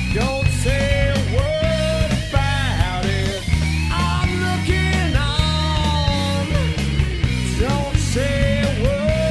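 Rock music: a band recording with steady, heavy bass and drums under a lead melody line that slides up and down in pitch.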